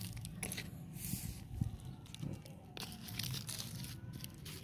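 Hand pressing and working potting soil in a small plastic pot: scattered soft crunches and scrapes of soil.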